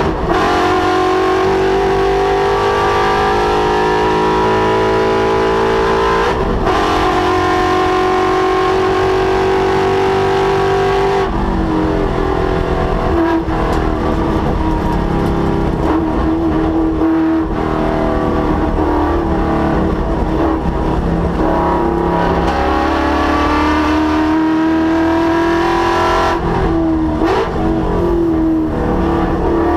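Ford Mustang's Coyote 5.0 V8 engine running hard on track, its pitch climbing and falling as it is driven through the corners, with sudden drops in engine speed about 6 and 11 seconds in and again near the end as the driver shifts or lifts.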